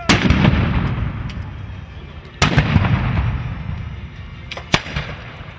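Three loud black-powder bangs from a Napoleonic battle reenactment, about two seconds apart, each followed by a long rumbling echo that fades; a smaller crack comes just before the third.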